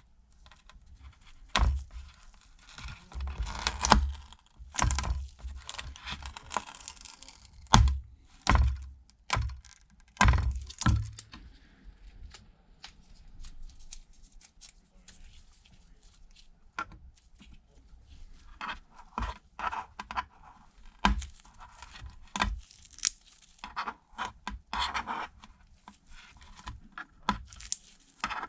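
Small hand tools knocking and scraping inside an opened iPad Pro's metal housing, with tearing as a glued-in part is pried off its adhesive. Sharp knocks come thick in the first half, then quieter runs of scratching.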